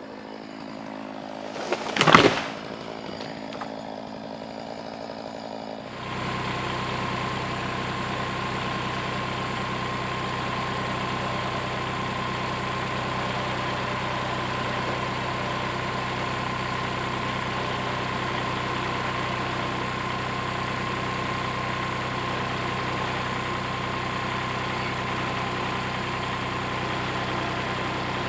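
A single loud impact about two seconds in, then from about six seconds a Kubota diesel tractor engine idling steadily.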